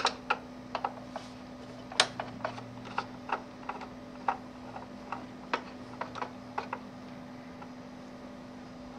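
Light, irregular clicks and ticks of a hand screwdriver working a screw loose from the TV's fan and lamp housing, about twenty in all and stopping near the end.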